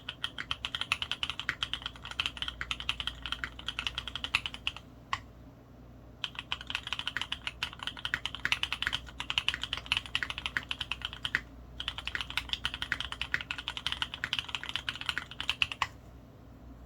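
Mode Eighty custom mechanical keyboard with lubed Kailh Cream switches in Cherry bottom housings, aluminum plate and PBT keycaps, typed on in three runs of rapid keystrokes separated by short pauses. The typing stops about a second before the end.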